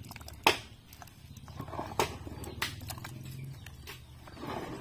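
Wooden pole pounding and stirring wet pig feed in a plastic bucket: a few sharp knocks, the loudest about half a second in, with squelching of the mash between them.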